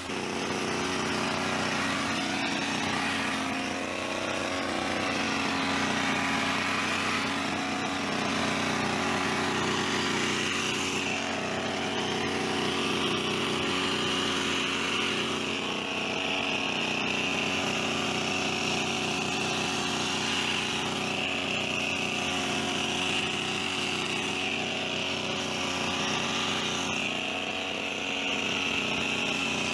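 Petrol hedge trimmer's small two-stroke engine running steadily, its speed dipping and rising slightly now and then.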